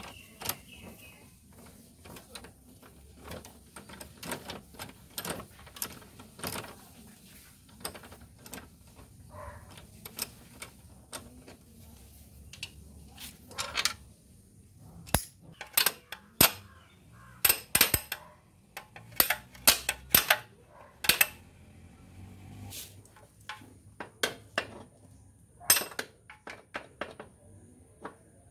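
Irregular metallic clicks and clinks of a T-handle socket wrench and tools working the rear axle nut of a motorcycle, sparse at first and louder and more frequent in the second half.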